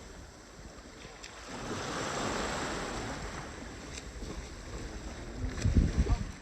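Sea waves washing onto a beach, one swell rising and falling about two seconds in, with wind buffeting the microphone in loud low gusts near the end.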